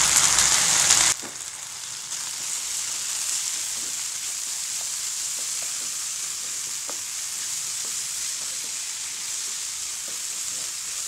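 Chopped cabbage and moong dal sizzling in a hot oiled pan as a wooden spatula stirs them, with faint scraping ticks from the spatula. About a second in, the sizzle drops suddenly to a quieter steady hiss.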